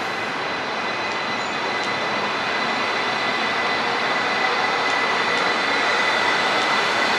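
E2 series Shinkansen train with IGBT-VVVF traction running, a steady rumble and rush with a thin high whine, growing slowly louder.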